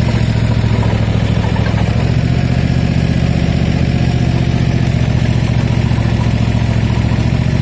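Cub Cadet ZT1 zero-turn mower's engine running steadily, also turning the belt-driven power-steering pump that supplies the home-built excavator attachment's hydraulics.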